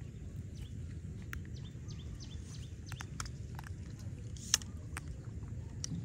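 Outdoor ambience: a steady low rumble with scattered short, high chirps and clicks, and one sharper click about four and a half seconds in.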